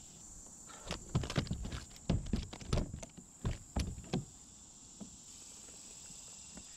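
A run of about a dozen irregular knocks and thumps on a plastic kayak's deck over some three seconds, as a freshly caught catfish is shifted about on it and handled, over a steady high insect buzz.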